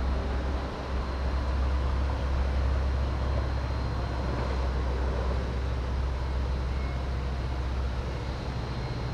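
A low, steady engine drone over a general noise haze, easing off near the end.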